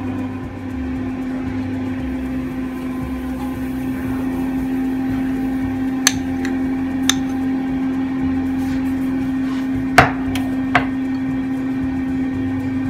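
A steady low appliance hum runs throughout, with a few sharp clicks and knocks as a glass measuring cup and a spoon touch a nonstick frying pan while pancake batter is poured and spread. The loudest knock comes about ten seconds in.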